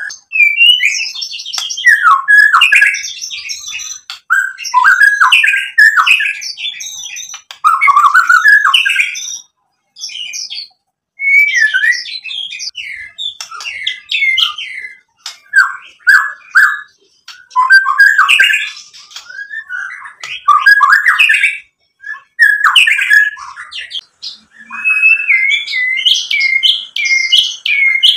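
White-rumped shama singing loudly in phrases of a couple of seconds with short pauses between them: rapid, varied whistles, trills and harsh notes. The song is packed with the varied borrowed phrases (isian) that keepers prize in a shama.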